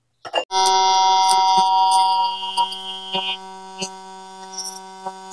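Electric arc welding on steel: a steady electric buzz from the arc, with scattered crackles and pops. It is loud for about the first two seconds, then goes on more quietly.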